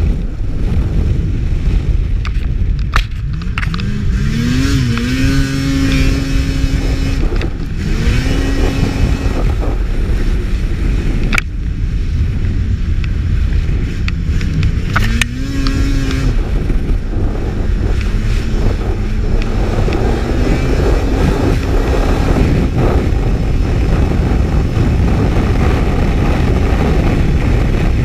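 Snowmobile at high speed on lake ice, its engine heard under a heavy rush of wind and track noise. The engine tone climbs as it accelerates, about three and a half seconds in and again near the middle, and each time then holds steady.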